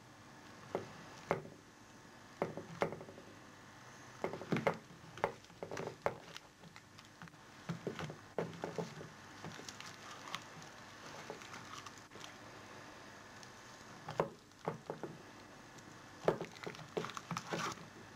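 Hands working a chicken breast through a wet egg-white and flour batter in a bowl: irregular squelches, slaps and taps, coming in clusters with short pauses between them.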